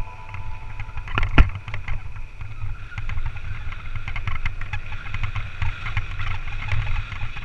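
Low rumbling noise on a head-mounted action camera's microphone, with scattered clicks and knocks and one loud knock about a second and a half in.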